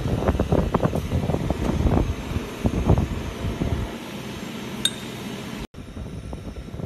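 Large slewing ring bearing turned by hand: its rolling elements rumble in the raceway with a fast run of clicks for the first three seconds, then a quieter, steadier rumble. There is a single sharp metallic clink near five seconds.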